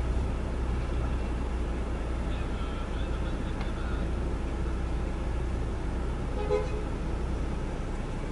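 Steady low rumble of a car's idling engine heard from inside the cabin, with a short toot about six and a half seconds in.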